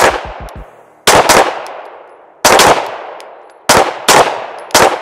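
Two pistols firing, about eight shots in five seconds, several of them in quick pairs where the two shooters' shots overlap. Each shot is a sharp crack that trails off in echo.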